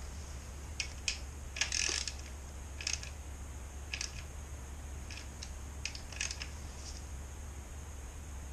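Irregular metallic clicks and small knocks from a hand tool tightening a motorcycle's sump plug, with a denser cluster about two seconds in.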